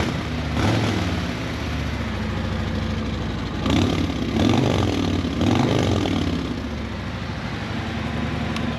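Stock 2021 Harley-Davidson Ultra Limited's Milwaukee-Eight 114 V-twin on its stock exhaust, idling a little high from a cold start and not very loud. It gets four short throttle blips: one about half a second in and three close together in the middle.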